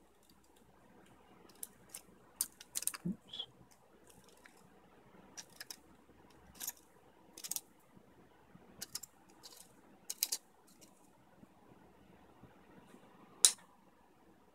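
Light, irregular clicks and ticks of small 3D-printed plastic parts being handled and threaded together by hand, with one sharper click near the end.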